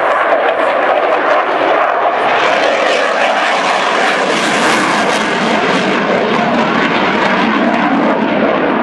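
Airplane engine noise from an aircraft flying in an airshow display: a loud, steady rushing roar that grows brighter and hissier about halfway through.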